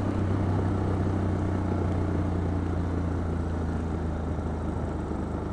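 2012 KTM 690 Duke's single-cylinder engine running at steady low revs while riding, with wind and road noise; it eases slightly quieter near the end.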